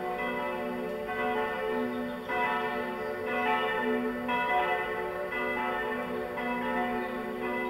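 Church bells swinging and ringing together from an open bell tower, a fresh stroke about once a second over the ringing of the others.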